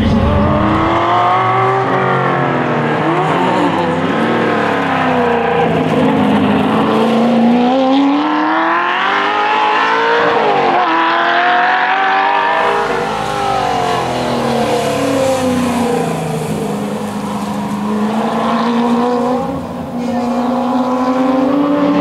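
1965 Ford Shelby GT350's 289 V8 at racing speed, its pitch climbing again and again under acceleration and dropping back on gear changes and braking.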